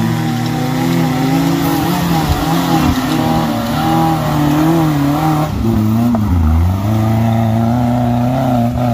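Suzuki Samurai engine revving unevenly under load as it climbs a muddy track. Its pitch rises and falls throughout, with a brief dip a little past halfway before it picks up again.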